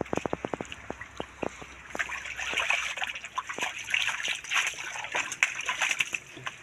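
Splashing and sloshing in shallow muddy water as hands grab at a mass of live fish, with a quick run of slaps in the first second and a half and denser splashing from about two seconds in.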